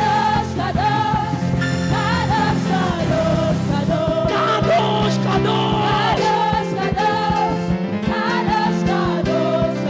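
Live gospel worship music: singing voices carry held, gliding lines over steady sustained instrumental chords.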